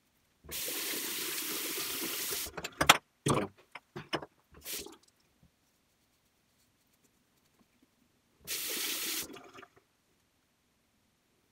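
Water running from a bathroom tap for about two seconds, then a few sharp knocks and clunks, and the tap running again briefly near the end.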